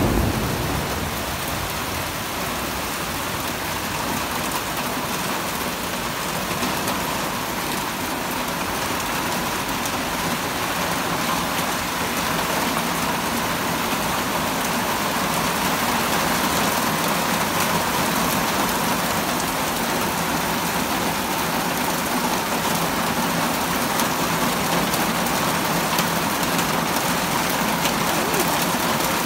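Heavy rain pouring down, a steady hiss of the downpour on the street, cars and ground.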